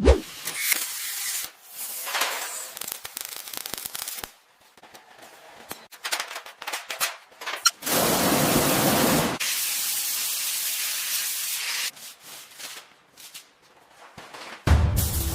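Workshop sounds in quick succession: a sharp hit, long bursts of air hissing as from a spray or blasting gun, scattered clicks and knocks, and a loud low rumbling noise that starts near the end.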